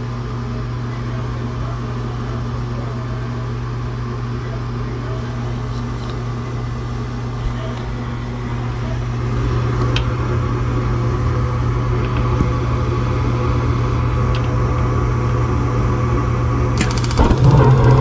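Rheem gas furnace starting up: the draft inducer hums steadily, then near the end the new spark igniter clicks rapidly and the burners light with a sudden rush, the furnace running louder once lit.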